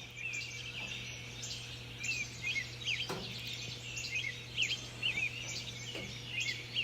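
Songbirds calling in the pre-dawn chorus: many quick, high chirps and short trills overlapping from several birds, over a steady low hum.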